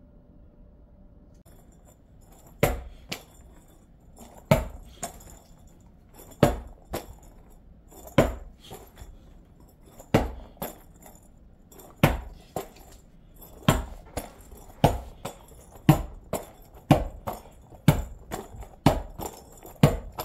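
A series of sharp cracking knocks, each followed by a smaller one or two, starting about two seconds in and recurring about every two seconds, coming faster, about once a second, near the end.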